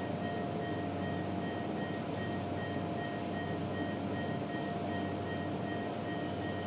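Steady hum and hiss of NICU medical equipment, with a constant mid-pitched tone and faint high tones above it, unchanging throughout.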